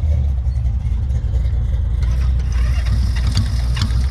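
1965 Honda CB77 Superhawk's 305 cc parallel-twin engine running at a low, uneven idle while being coaxed to keep running, with a few sharp clicks near the end. The bike is reluctant to run, which the owner puts down to a low battery.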